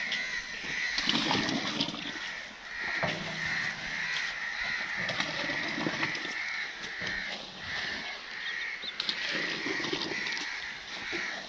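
Crows cawing over and over, a harsh call pulsing about twice a second, with low splashing as thick hot jaggery syrup is ladled into a tin.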